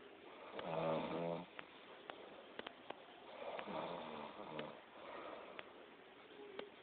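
A sleeping person snoring: two long, pitched snores about three seconds apart, with a fainter one just after the second. Faint sharp clicks fall between them.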